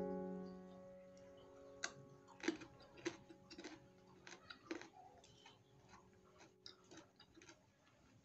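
A soft piano chord from the background music, slowly dying away, with faint, irregular short clicks scattered through it.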